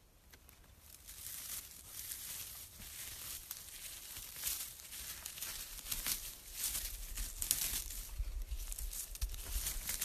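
Dry pine needles and forest litter crackling and rustling as a hand scrapes them away from a mushroom in the ground, starting about half a second in with irregular crackles throughout. Low rumbling bumps join in over the last few seconds.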